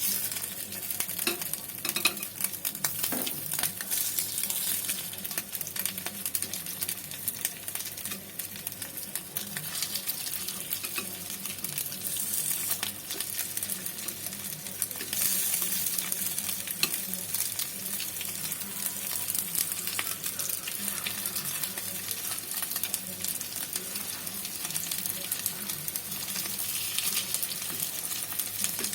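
Stuffed tofu shallow-frying in a little oil, sizzling and crackling steadily with many small pops.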